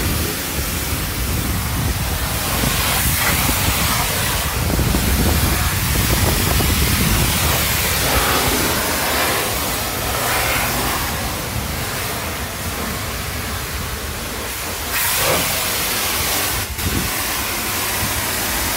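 Self-serve car wash foam brush spraying soapy foam in a steady hiss, with a low rumble underneath.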